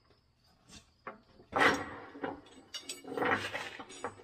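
Steel hook rods of clamp-on tractor duals clanking and rattling against the steel wheel rim as they are fitted, with a sharp clank about one and a half seconds in.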